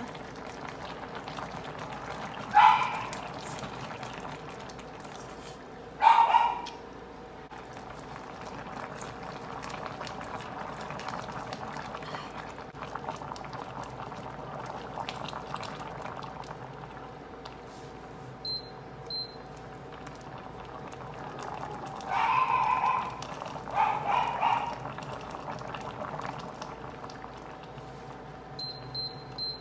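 A pot of pork-hock sour soup simmering with a soft, steady bubbling. A dog barks loudly over it: one bark a few seconds in, another a few seconds later, and two more past the middle. Short, faint high beeps sound a few times in the second half.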